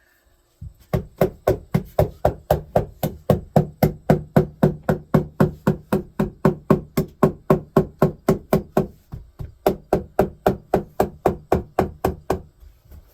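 Hammer blows on wood, fast and even at about four a second, each knock ringing briefly, with a short break about nine seconds in.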